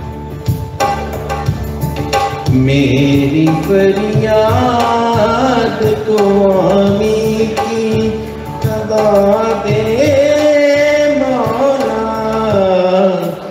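A sung devotional Urdu poem (a dua) with tabla accompaniment: the tabla plays from the start, and a voice comes in about three seconds in with long, ornamented, gliding phrases.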